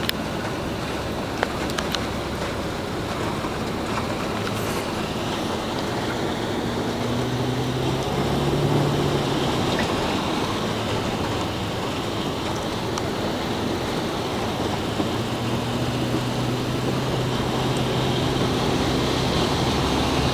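Car cabin noise while driving: steady tyre and road noise with a low engine hum that comes in about seven seconds in and again from about fifteen seconds, and a few faint clicks.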